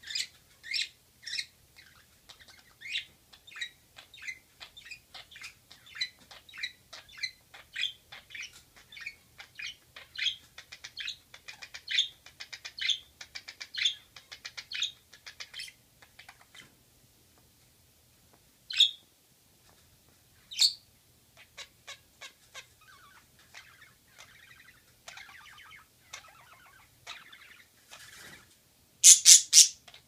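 Budgerigars chirping and chattering in courtship: a fast run of short chirps through the first half, two sharp single calls after a short pause, softer warbling, then a loud burst of calls near the end.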